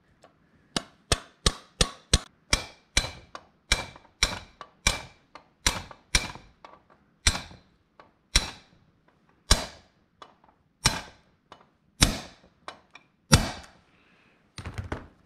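Hammer striking a brass drift to drive a pin into an NP435 transmission's shift cover assembly: more than twenty sharp, ringing metal taps. They come about two to three a second at first and slow to about one a second after the middle, ending in a few lighter taps.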